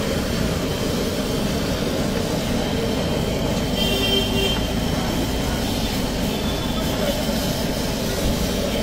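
Onions and vegetables sizzling on a large hot flat griddle as a spatula scrapes and turns them: a steady hiss and rumble.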